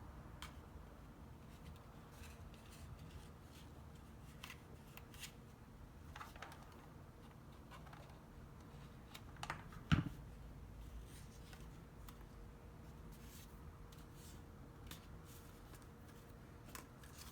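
Faint rustling and light clicks of cardstock paper petals being handled and pressed into place as they are glued, with one sharper knock just past the middle.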